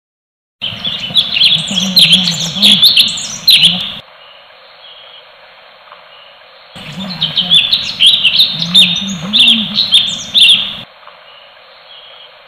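Recorded song of leafbirds and a bulbul (cucak cungkok, cucak kinoi, kapas tembak) played as masteran training audio for caged songbirds: two bursts of rapid, high chattering notes, each three to four seconds long, about three seconds apart.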